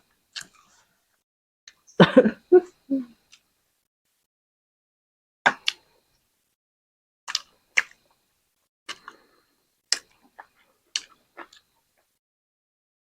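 Close-up eating sounds from a mukbang of spicy chicken: separate wet smacks and clicks of chewing and lips, spaced a second or two apart. A louder, fuller cluster of mouth sounds comes about two seconds in.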